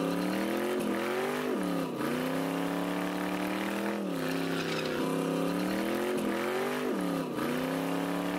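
Car engine revving hard during a burnout, the revs climbing and dropping back several times, over the rush of a spinning tire on pavement.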